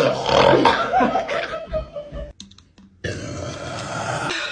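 A person burping loudly after chugging a bottle of Sprite. One long, rough burp lasts about two seconds, then a second one starts after a short pause.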